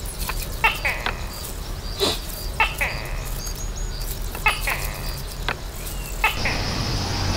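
A forest animal's short, sharp call, repeated about every two seconds, over faint high chirping. Near the end a steady high insect drone takes over.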